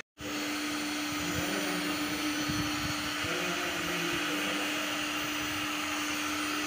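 Electric heat gun running steadily, its fan blowing with a constant hum, as it heats PVC wiring conduit to soften it.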